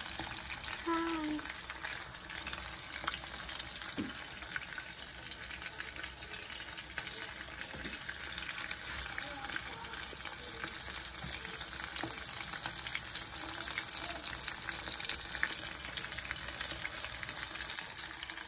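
Fish frying in hot oil in a pan: a steady sizzle dotted with many small crackling pops.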